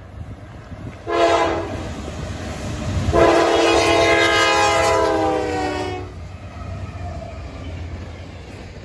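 Freight locomotive's multi-chime air horn sounding for a grade crossing: a short blast about a second in, then a long blast of about three seconds whose pitch drops slightly as the locomotive passes. After the horn stops, the low rumble of the freight cars rolling over the crossing carries on.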